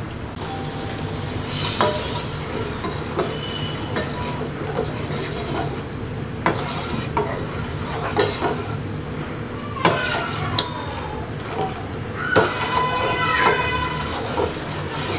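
Steel ladle stirring milk in a stainless steel pan, with irregular clinks and scrapes against the pan's sides and bottom. The milk is being boiled down by half and is stirred so it doesn't stick and catch on the bottom.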